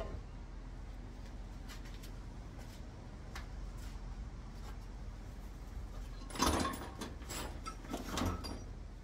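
Parts of a manual gearbox being handled during a teardown: a few faint clicks, then louder clinks and rattles of metal parts about six and a half seconds in and again around eight seconds.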